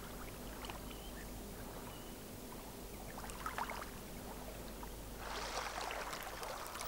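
Faint running-water ambience over a low steady hum, with a few soft ticks; the water noise swells about five seconds in.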